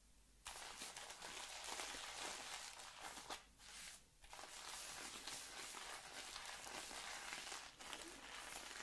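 Shaving soap being worked into a thick wet lather, a soft fizzy crackling with many fine ticks, broken by two brief pauses near the middle.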